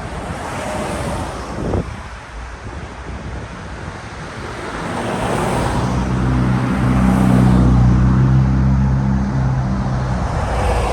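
Motor vehicle running, with road and wind noise. About halfway through, a steady low engine hum comes in and holds until near the end.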